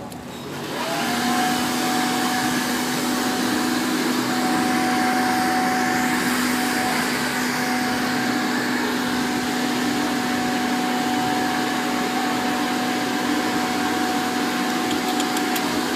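Electric air blower switching on about a second in, spinning up with a short rise in pitch and then running steadily with a constant whine. This is the kind of blower used to inflate and empty water walking balls.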